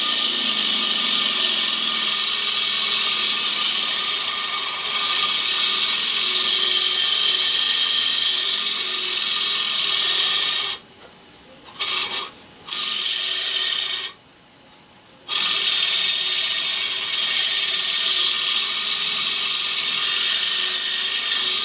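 Small homemade electric motor, the prototype model dynamo run as a motor, spinning fast with a steady high-pitched whir and buzz from its brass shim-stock brushes on the commutator. About eleven seconds in it stops abruptly for about a second, runs briefly, stops again for just over a second near fourteen seconds, then runs on.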